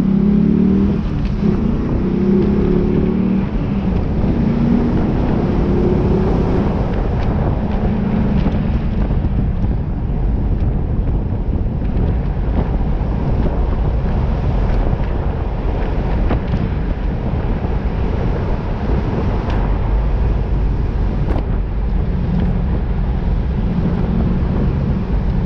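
2002 Pontiac Trans Am WS6's LS1 V8 pulling through the gears, its pitch rising in steps over the first several seconds, then cruising under steady road and wind noise.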